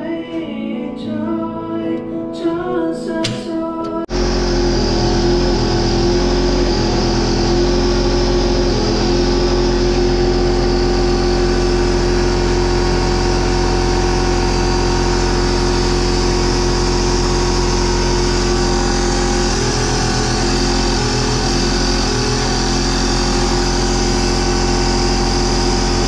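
An electric pancake air compressor kicks on abruptly about four seconds in and runs with a steady motor hum and hiss, as it does when refilling its tank. Music plays before it starts.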